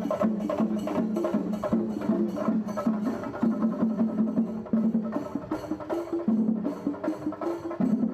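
Percussion-led music: fast, even drum strokes under a held melody line that steps to a new note every second or so.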